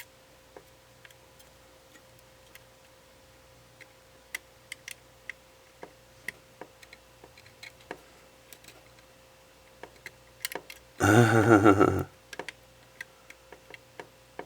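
Small, irregular clicks and ticks of a tool and tiny parts against the camera's plastic and metal while the SD card reader unit is worked into place. About eleven seconds in comes a loud groan of frustration lasting about a second.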